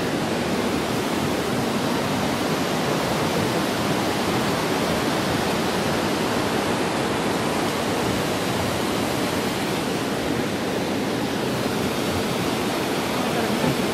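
Mountain stream rushing over rocks: a steady, unbroken sound of running water.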